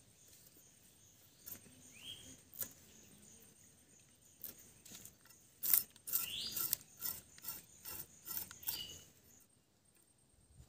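Small khayra fish scraped and cut against a boti's fixed blade: scattered scrapes and clicks at first, then a quick run of scraping strokes in the middle.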